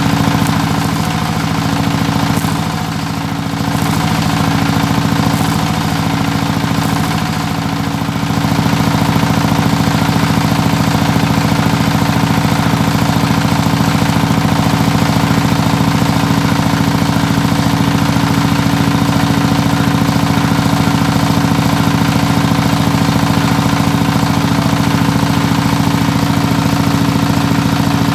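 An engine running steadily at idle, a constant low drone that steps up a little in loudness about eight seconds in and then holds even.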